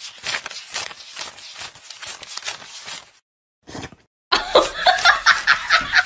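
A wad of paper banknotes being flicked through in rapid ticks, then, a little past halfway, a person laughing loudly in rhythmic pulses.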